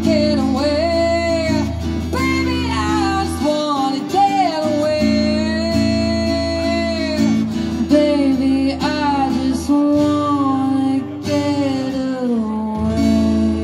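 A woman singing long held, sliding notes while playing chords on an acoustic guitar, amplified through a small PA.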